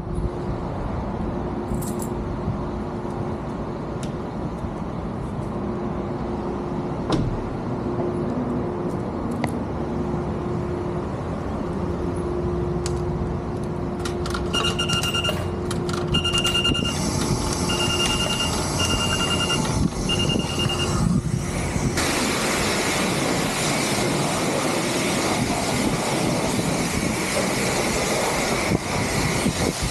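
Car wash bay noise: a steady low hum under background noise, then an electronic beeper sounding a run of short, evenly spaced beeps midway. Near the end of the beeps, a loud steady rushing hiss of washing equipment starts up and keeps going.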